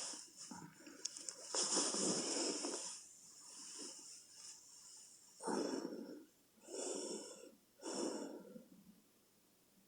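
A woman with sleep apnea snoring in her sleep. A long, loud snore comes about one and a half seconds in, then a quieter stretch, then three short snores about a second apart, and then the breathing goes quiet.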